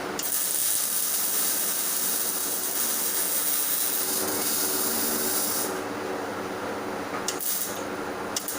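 MIG welding arc hissing and crackling steadily over a low machine hum, stopping about six seconds in, followed by a couple of sharp clicks.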